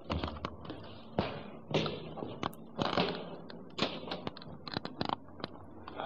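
Irregular knocks, taps and thuds, about a dozen sharp ones spread unevenly with smaller clicks between.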